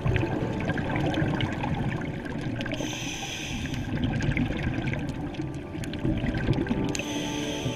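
Scuba diver breathing through a regulator underwater: a low bubbling rumble of exhaled air, with a short hiss of inhalation about three seconds in and again near the end.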